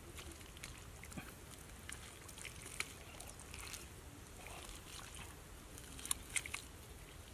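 Bare hands digging in wet mud: soft squelches and slops with scattered small clicks, the sharpest few about six seconds in, over a low steady rumble.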